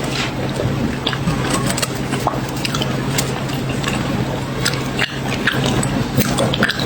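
Close-miked chewing and crunching of chocolate cookie bars, with many short, crisp crackles over a steady low hum.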